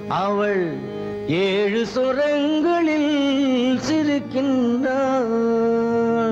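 Old Tamil film song music: a single wordless melody line that slides and wavers, with a few short breaks, over a steady low drone.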